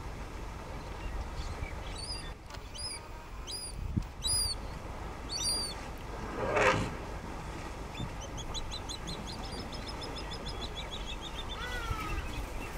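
Wild birds calling: a run of short whistled calls in the first half, a louder harsh call a little past the middle, and a quick falling trill later on. Low wind rumble on the microphone underneath.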